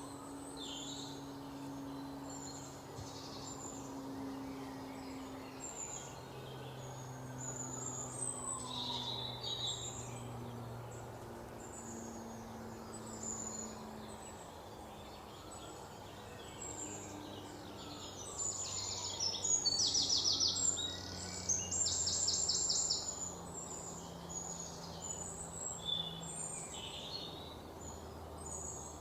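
Birds chirping and trilling over soft, slowly changing low held notes, as in a nature-ambience background track. The loudest rapid trills come about two-thirds of the way through.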